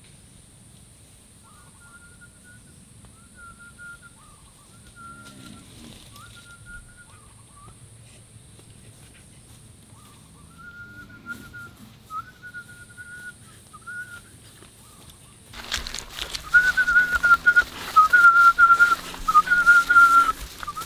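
A man whistling through pursed lips: a string of short, flat notes at one pitch, each ending in a small drop. It is faint at first and much louder for the last quarter.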